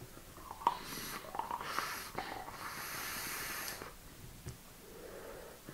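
A person taking a long draw on a box-mod electronic cigarette and breathing out the vapour: a steady airy hiss lasting about three seconds, with a few small clicks near the start, fading to quiet breathing.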